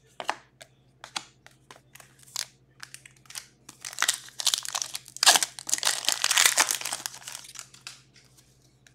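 Trading cards being handled with scattered light snaps and flicks, then the foil wrapper of an Upper Deck Artifacts hockey card pack crinkling as it is torn open, loudest a little past the middle.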